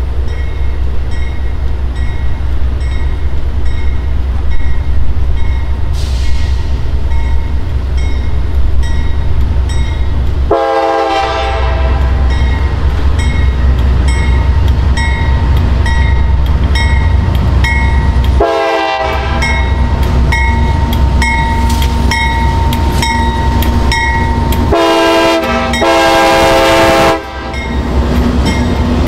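Diesel locomotive air horn sounding four blasts over the rumble and clatter of a train rolling past: a long blast about ten seconds in, a short one some eight seconds later, then two close together near the end, the last cutting off sharply. A high ding repeats about twice a second through much of it.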